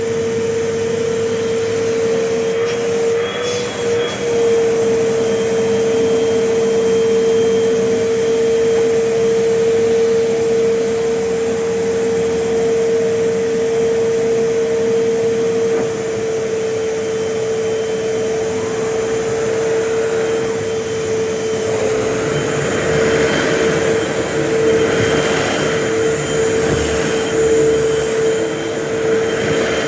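Vacuum cleaner running steadily, its motor giving a constant whine over a rushing hiss of air. About two-thirds of the way in, the hiss grows louder and uneven, rising and falling as the cleaner works the floor.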